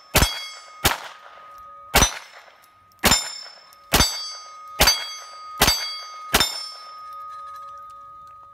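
Smith & Wesson SW22 Victory .22 rimfire pistol fired eight times in an unhurried string, a shot about every second, each followed by a steel plate target ringing. The ring lingers after the last shot. The CCI Mini-Mag rounds cycle without a malfunction.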